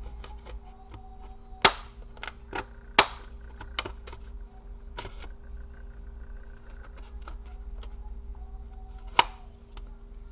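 Plastic laptop casing being pried apart by hand: a run of small clicks and ticks with three loud, sharp snaps, near the start, about three seconds in and near the end.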